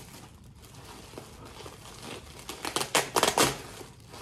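Thin packaging wrap crinkling and rustling as hands dig through it inside a cardboard box: light scattered crackles, then a loud flurry of crinkles about two and a half seconds in, lasting about a second.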